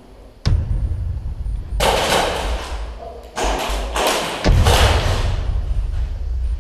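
Thumps and rustling of a person moving with gear close to the microphone, in three noisy bursts of about a second each after a sharp click near the start.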